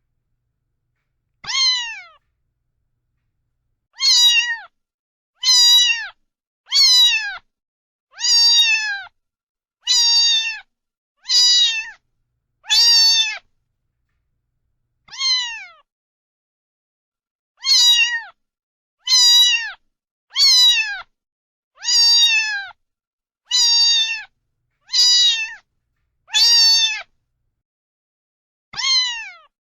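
A domestic cat meowing again and again, seventeen short meows each falling in pitch, roughly one every one to one and a half seconds, with a couple of longer pauses and dead silence between them.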